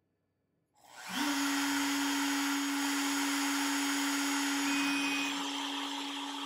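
CNC trim router with a 1/8-inch end mill bit switched on about a second in: it spins up in a fraction of a second to a steady high whine and runs on loud and even, with a hiss of air and cutting noise over it.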